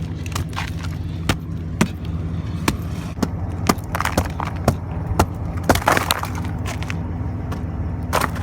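Ice and frozen snow cracking and crunching in sharp snaps, about two a second, over the steady low hum of an idling engine.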